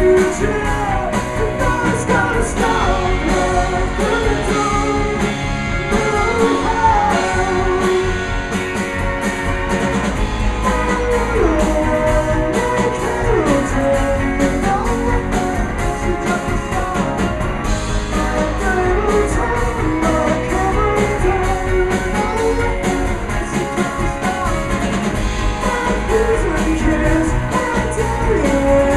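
Live rock band playing a song: a male voice sings over strummed acoustic guitar, electric guitar, bass and drums, with a steady cymbal beat.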